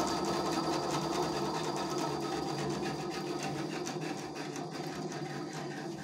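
Einhell TC-SB 200/1 benchtop band saw running idle with no cut, a steady machine run that grows slightly quieter toward the end. The light, low-rigidity frame vibrates strongly while it runs.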